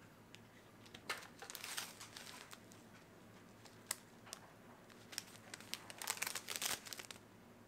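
Foil and plastic instant-noodle packaging crinkling as the seasoning sachets are handled and taken out of the tray, in two spells, about a second in and again near the end, the second the loudest, with a single sharp click around the middle.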